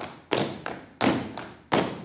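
Dancers stamping on a stage floor in a steady rhythm: three heavy thumps about two-thirds of a second apart, with a lighter tap between each, ringing briefly in the hall.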